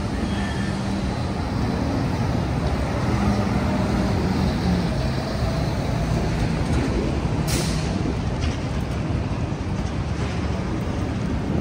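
Downtown street traffic: city buses and trucks running, with a steady engine hum under the road noise. A short hiss sounds about seven and a half seconds in.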